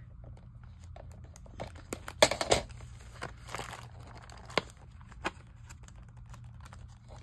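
Hands handling and prying at a taped cardboard stamp-kit package: rustling, scraping and light clicks of cardboard and tape, with a louder burst of rustling about two seconds in and a couple of sharper clicks later.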